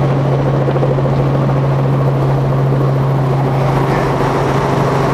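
Helicopter engine and rotors running in a steady, unchanging low drone.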